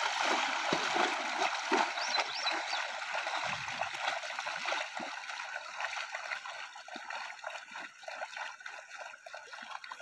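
Shallow river water rushing and splashing as calves wade through it, their legs churning the water in irregular splashes that grow fainter as they move away.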